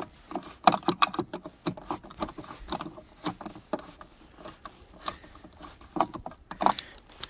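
Irregular plastic and metal clicks and knocks from a minivan taillight housing being worked loose by hand, with a couple of louder knocks about a second in and near the end.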